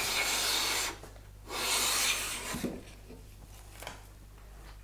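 Hand plane cutting two shavings along the edge of a board, two strokes of about a second each, the second starting about a second and a half in, followed by a couple of faint knocks.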